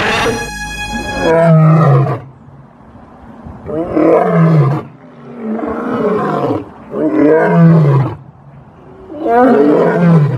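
A series of five dinosaur-style roars, about every two seconds, each dropping in pitch as it goes, voicing the toy dinosaurs. A steady buzzing tone sounds for about the first second before the roars begin.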